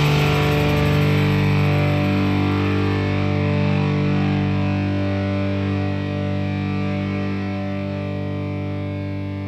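Emo-punk band recording ending: the fuller sound drops out about a second in, leaving a distorted electric guitar chord ringing with effects and slowly fading.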